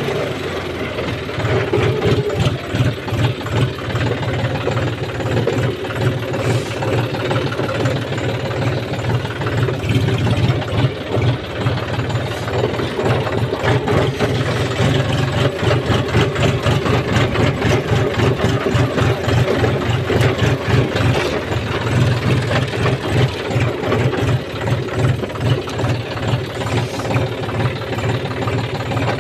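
John Deere tractor's diesel engine running steadily while the tractor is driven, with an even pulsing beat.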